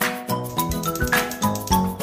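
Background instrumental music with a steady, quick beat.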